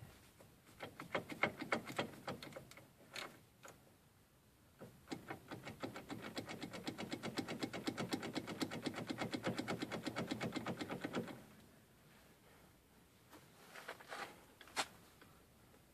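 Ratchet wrench clicking: a short burst of quick clicks in the first few seconds, then about six seconds of fast, even clicking from about five seconds in, followed by a couple of separate metal knocks near the end.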